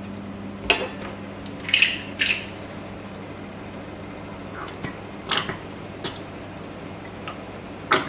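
Plastic squeeze bottle of chili sauce being squeezed into a measuring cup: about six short squelching squirts spread across a few seconds.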